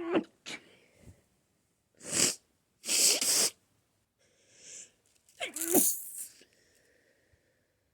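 A person sneezing over and over in an allergic sneezing fit: several loud sneezes in quick succession, with short breathy inhales between them.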